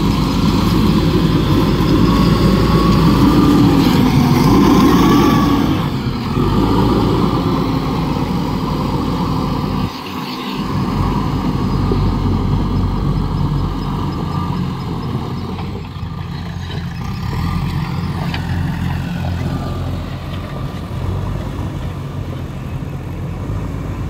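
JCB 4DX backhoe loader's diesel engine running as the machine works, with a whine that rises and falls over the first several seconds. It then runs steadier and a little quieter.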